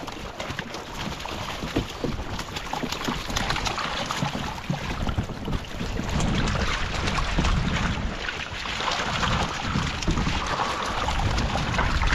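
A netful of vendace thrashing and splashing at the water surface, with water sloshing and fish flopping. It is a busy patter of small splashes and slaps, louder from about six seconds in.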